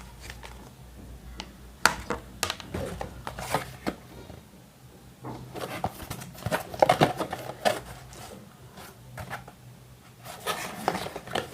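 A plastic hair dryer being handled: scattered clicks, knocks and rubbing, with no motor running.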